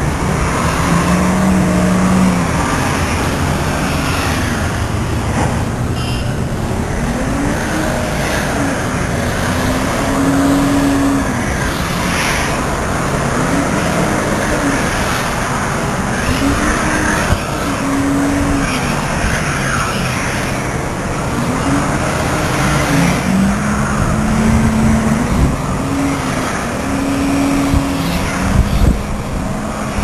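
Car engines revving, their pitch rising and falling again and again, over a steady rush of traffic noise.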